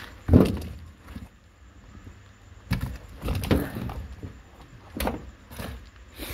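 Handling noise: several dull thumps and rustles as objects are moved about and bumped close to the phone, the loudest about half a second in.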